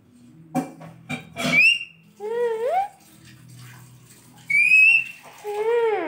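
Parakeet whistling: four short whistles that rise, bend or fall in pitch, one of them a rising whistle held for about half a second, and the last one sliding down at the end. Two sharp clicks come before the whistles, in the first second and a half.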